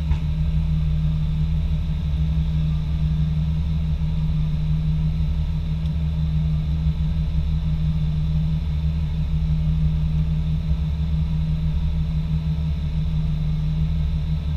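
Off-road vehicle engine idling steadily: an even, low hum with no revving.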